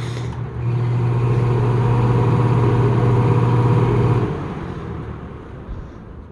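Lakewood Penney's SPXC 20-inch box fan running on its low speed, a steady motor hum with blade whoosh. About four seconds in, the motor hum cuts off and the fan coasts down, fading away.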